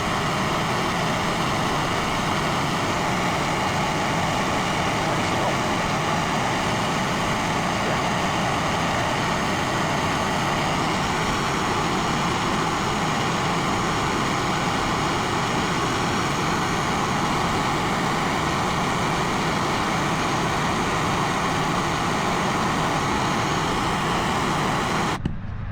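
Handheld gas torch burning with a steady rushing roar while heating the cracked tire-inflator fitting for aluminum brazing rod. It cuts off suddenly near the end.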